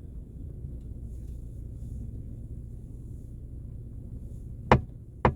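Low road rumble in a moving car's cabin, then two sharp knocks near the end, about half a second apart: the creaking knock from a Mercedes-Benz E-Class W212 panoramic sunroof while driving.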